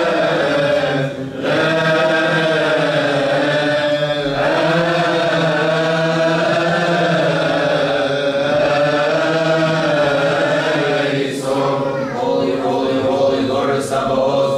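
Coptic Orthodox liturgical chanting: long, gently wavering sung notes drawn out in melismas, with brief breaks for breath about a second and four seconds in.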